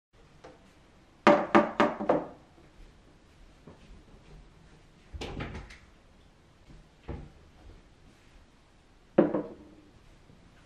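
Sharp knocks from hard objects being handled: a quick run of four or five about a second in, a short rougher noise around five seconds, and one hard knock with a brief ring near the end.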